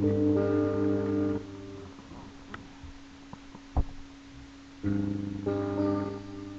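Guitar playing slow strummed chords. The first chord rings out and fades, there is a single sharp tap in the pause, and a second chord is struck about five seconds in and left to ring.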